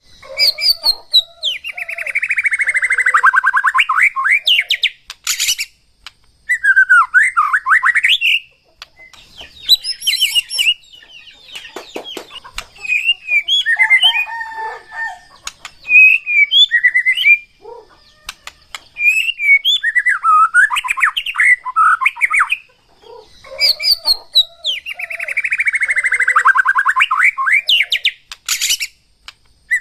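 White-rumped shama (murai batu) singing loudly in varied phrases: whistled glides, chattering runs and fast rattling trills, with brief pauses between phrases. A long rattling phrase near the start comes again near the end.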